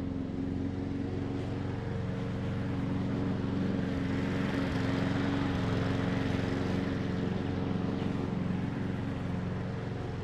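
Old Hecht walk-behind lawn mower running steadily while mowing, growing louder through the middle and easing off near the end.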